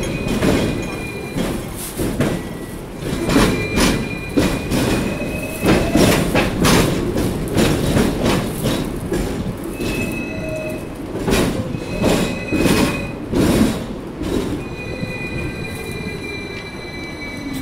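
Hong Kong double-decker electric tram running on street track, heard from on board: a low rumble with sharp knocks and clatter from the wheels on the rails, and thin, high wheel squeals. Near the end a falling tone as the tram slows into a stop.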